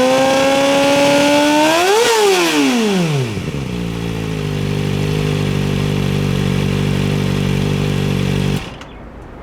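Kawasaki ZX-4R's 399 cc inline-four running through a Trick Star IKAZUCHI titanium 4-1 full exhaust. It is held at raised revs and blipped once about two seconds in, then drops back to a steady idle, and the sound cuts off abruptly near the end.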